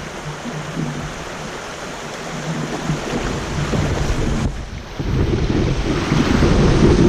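Creek water rushing with wind buffeting the microphone. It dips briefly about four and a half seconds in and comes back louder.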